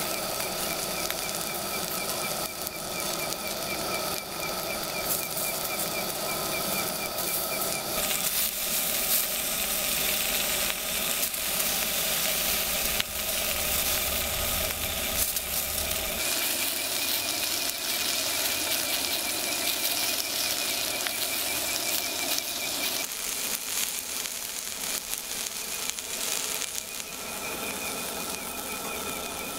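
Sausages and vegetables sizzling on a steel camp griddle plate, a steady hiss, with a fine pulsing high trill behind it. The sound changes abruptly about 8, 16 and 23 seconds in.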